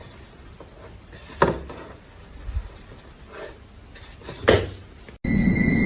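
Faint room noise with two sharp clattering knocks about three seconds apart and a few softer bumps between them, then music with steady high tones cuts in near the end.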